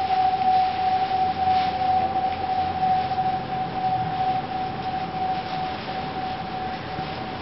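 A single steady high pure tone held without a break over a faint hiss, slowly growing quieter, as part of a stage performance's sound score.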